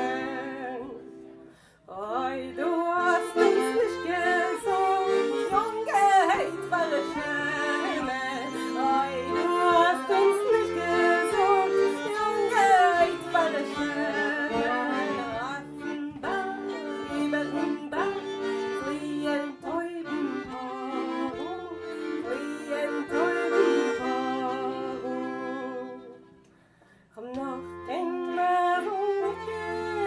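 Violin playing a melody with slides over sustained accordion chords, breaking off briefly twice, about two seconds in and shortly before the end.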